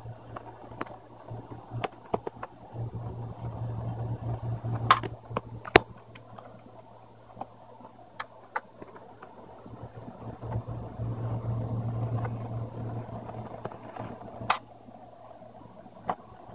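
Screws being worked out of a laptop's screen assembly: scattered small clicks and scrapes of the screwdriver and plastic parts, with a few sharper ticks, over a steady low hum.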